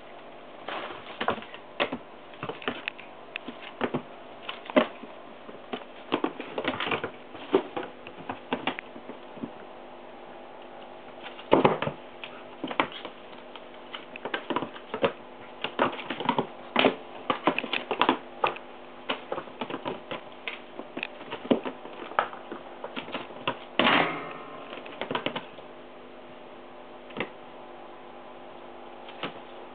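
Irregular light taps, scuffs and thumps of cats' paws and a wand toy on a woven floor mat as a Munchkin kitten pounces and chases, with louder flurries about halfway through and again near the end. A faint steady hum sits underneath.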